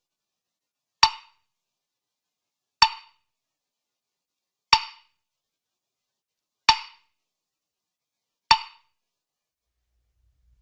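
A cartoon sound effect: five single sharp knocks, evenly spaced about two seconds apart, each with a short pitched ring.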